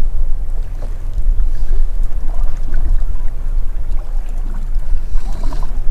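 Steady low rumble aboard a small fishing boat at sea, from wind and water around the hull while it drifts.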